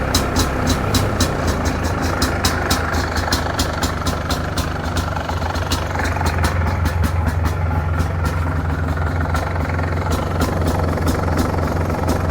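MZ ETZ 251 motorcycle's single-cylinder two-stroke engine idling steadily, with a regular clicking over it that fades for a few seconds mid-way. No exhaust-leak hiss from the exhaust connector, just sealed with high-temperature silicone; the engine is still cold.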